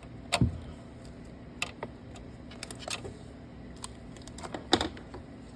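Scattered light clicks and taps from hands working with markers and the printer's control-panel wiring, with a sharp click about half a second in and a louder pair near the end.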